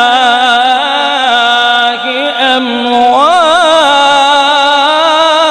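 A man's voice chanting Quran recitation (tilawat) in a drawn-out melodic style. It holds long wavering notes, dips briefly about two seconds in, then rises into an ornamented phrase.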